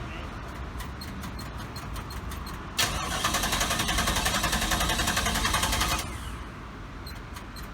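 A car's starter motor cranks the engine for about three seconds in an even, rapid chugging rhythm, then stops. The engine does not plainly catch.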